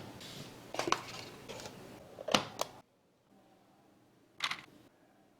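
Hard plastic clicks and taps from handling the box of TTC Tiger keyswitches: a cluster of sharp clicks in the first three seconds, then one more click about four and a half seconds in.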